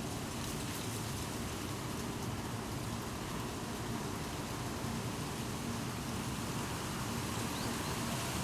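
Wind blowing through a treetop, a steady rustling of leaves with no breaks, like light rain, over a low steady rumble.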